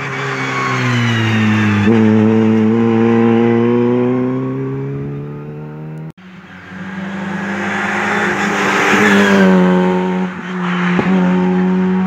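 Rally car engines at full throttle on a stage. A car accelerates hard, its engine pitch climbing, with a quick upshift about two seconds in, then falls away. The sound breaks off about six seconds in, and a second rally car is heard accelerating and shifting up through the gears.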